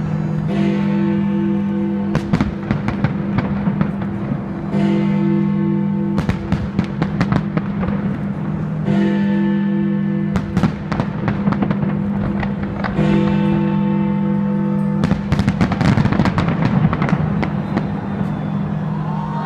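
Aerial fireworks bursting, with many sharp bangs and crackles, the busiest stretch about 15 to 17 seconds in. Music plays a phrase of held notes that repeats about every four seconds.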